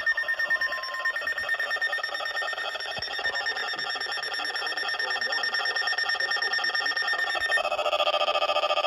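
Electronic emergency alert tone, a rapidly pulsing stack of steady tones. About three-quarters of the way through it changes to a louder alert pattern at different pitches.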